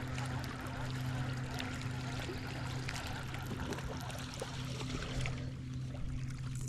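A boat's motor humming steadily, with water trickling and splashing against the hull. The splashing thins out about five seconds in while the hum keeps going.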